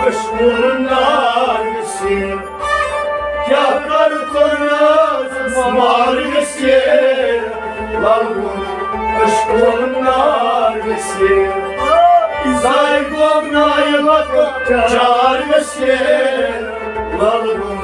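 Men singing a Kashmiri devotional song in a bending, ornamented melody, backed by a harmonium, a plucked rabab and a bowed string instrument.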